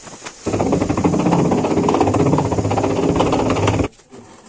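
A machine runs loudly with a fast, even rattle for about three seconds, starting and stopping abruptly.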